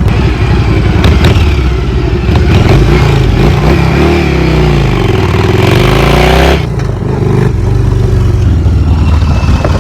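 Motorcycle engine running under way, its pitch rising and falling as it accelerates, then dropping off suddenly about two-thirds of the way through before running steadily again.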